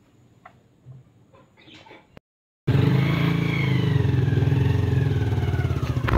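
A small commuter motorcycle's engine running close by as the bike rolls slowly up. It cuts in abruptly and loud after about two and a half seconds of near quiet.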